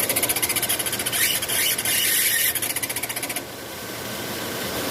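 Fast, even mechanical ticking clatter from a car, a noise that sounds as if it comes from the engine but, according to the mechanic, does not. About three and a half seconds in the ticking stops, leaving a smoother sound that slowly grows louder.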